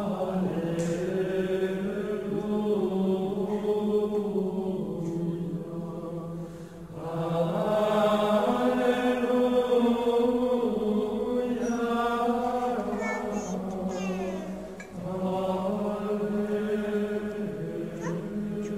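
Vocal chant: voices sing slow, long-held notes over a steady low drone, with new phrases starting about 7 and 15 seconds in.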